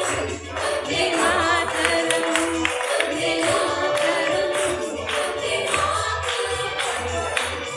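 Dance song playing: singing over a steady beat.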